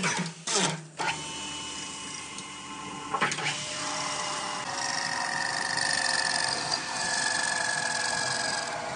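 A small motor or power tool running with a steady whine. A couple of sharp knocks come in the first second, and a click about three seconds in.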